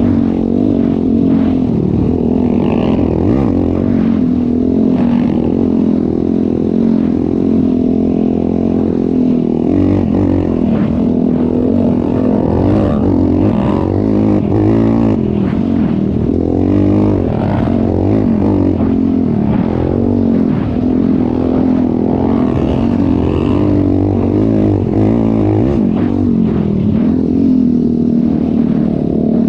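ATV engine running under load during a ride, its pitch rising and falling as the throttle is worked, with scattered knocks and rattles throughout.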